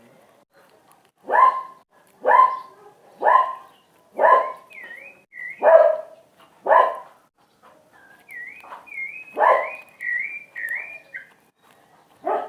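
A dog barking repeatedly, about once a second, with a gap in the middle. Between the barks come high chirping calls.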